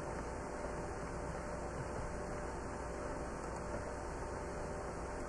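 Steady low hum with hiss: the background noise of the recording, with no other sound.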